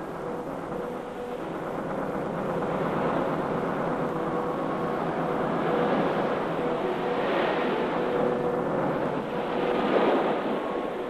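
Motorboat engine running steadily under a rush of water past the hull, growing louder in the second half with a surge near the end.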